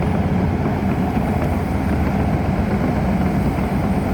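Excavator engine running steadily at an even idle.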